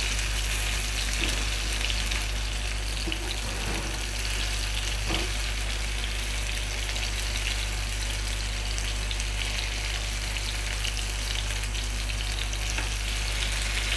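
Marinated paneer cubes frying in hot oil in a nonstick frying pan, a steady sizzle, with a few faint clicks of metal tongs as the pieces are turned over.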